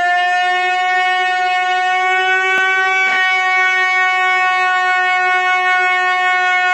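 One long, loud horn note at a single steady pitch, held without a break.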